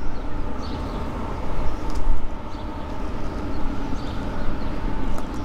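Distant low rumble of an approaching freight train led by a GE AC44C6M diesel locomotive.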